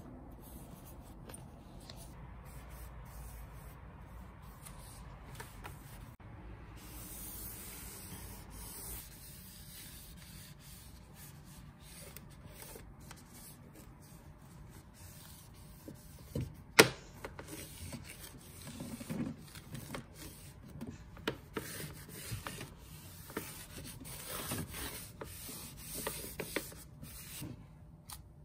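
A dry dusting sheet rubbing and wiping over floor and a wall socket plate, with scattered light knocks of handling and one sharp click about two-thirds of the way through.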